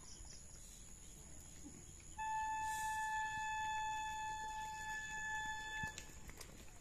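A single steady, high note like a wind instrument's. It starts suddenly about two seconds in, holds one unchanging pitch for nearly four seconds, then stops.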